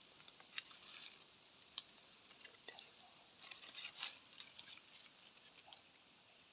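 Faint, irregular small clicks and rustles over near silence, thickest about halfway through.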